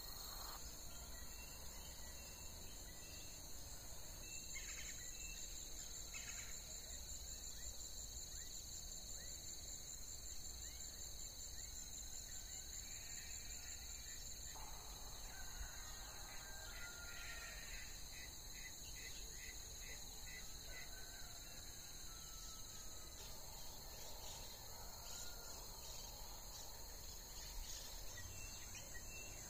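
Faint outdoor ambience of insects trilling in a steady high-pitched drone, with scattered bird calls that include a quick run of repeated notes about two-thirds of the way through.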